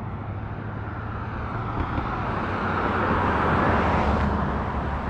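Street traffic: a car passing by, its tyre and engine noise swelling to a peak about three and a half seconds in and then fading, over a steady low rumble of road noise.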